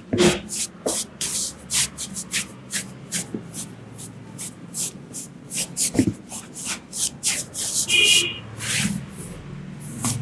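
Barber's hands rubbing and patting during a massage: a quick run of brushing, slapping strokes, about three a second, with a few heavier slaps near the start and about six seconds in.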